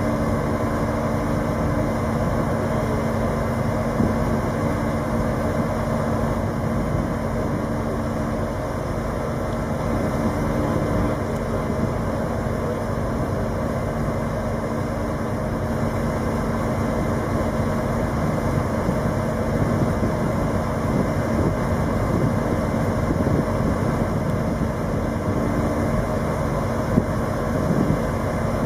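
Heavy engine running steadily at a constant speed, a continuous low rumble with a faint hum that comes and goes.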